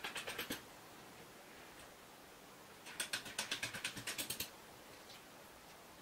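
Small metal bolts being fitted and turned by hand in a brass hinge plate: two runs of rapid light metallic clicking, about ten clicks a second, a short one at the very start and a longer one from about three seconds in.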